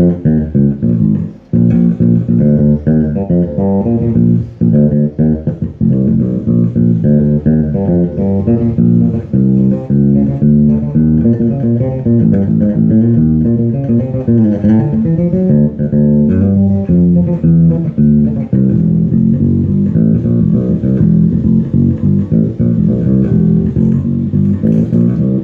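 Five-string electric bass guitar with EMG 45DC active pickups played solo, a steady stream of quick plucked notes.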